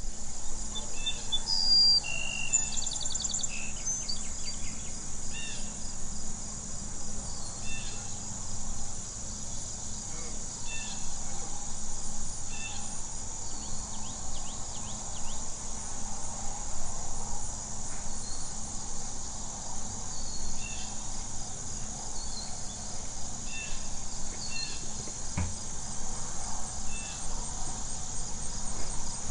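Rural outdoor ambience: a steady, high-pitched insect chorus with short bird chirps and calls scattered throughout, over a low steady rumble.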